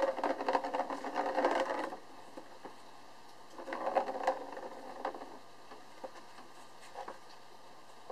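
Plastic ball rolling fast around the circular plastic track of a cat's track-and-scratch-pad toy as a kitten bats it: a whirring rattle for about two seconds, again briefly about four seconds in, with a few sharp clicks of the ball and paws in between.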